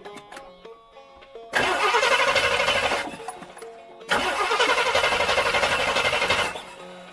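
1964 Rambler American's engine cranking over on the starter in two bursts, about a second and a half and then about two and a half seconds long, without settling into a run. It is a hard start after the car has sat for a long time, with starter fluid in the intake.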